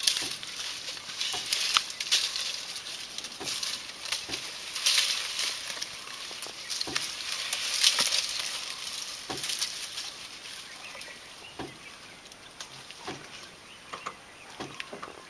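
Leaves and branches rustling and shaking, with many irregular snaps and cracks of twigs, as an elephant works at a tree. The sound is strongest in the first half and dies down after about ten seconds.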